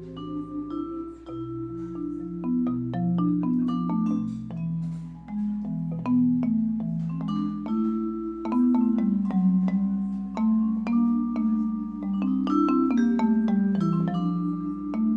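Instrumental music: slow held chords moving every second or so beneath a melody of short struck notes that ring briefly, in a mallet-like, vibraphone or marimba-like tone.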